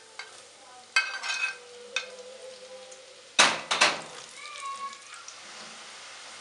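Small dough pieces being tipped off a ceramic plate into hot olive oil in a deep fryer's wire basket: sharp clinks of the plate on the metal basket, then a cluster of loud clatters about three and a half seconds in. After that the oil sizzles steadily as the dough fries.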